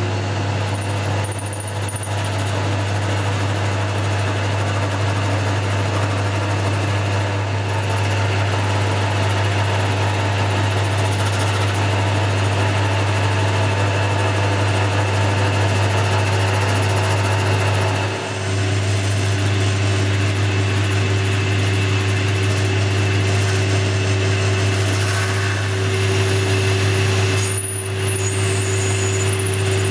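Boxford lathe running steadily while turning down the threaded end of a bolt, a steady machine hum with the tool cutting. The sound dips briefly twice, about two-thirds of the way through and again near the end.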